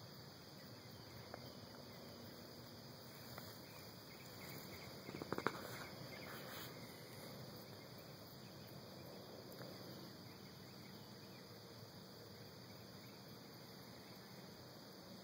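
Quiet outdoor ambience with a steady high trill of crickets. About five seconds in comes a brief cluster of sharp clicks and rustles, with a couple of single ticks earlier.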